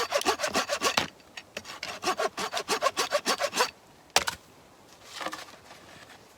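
Hand saw cutting through wood with quick back-and-forth strokes, about six a second. The sawing pauses briefly about a second in, starts again and stops a little before four seconds, followed by a single sharp knock.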